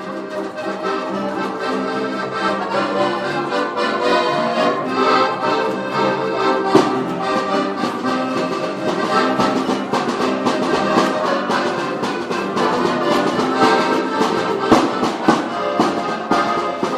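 Live instrumental music from a jam session: sustained chords with a melody over them, and occasional sharp percussive hits.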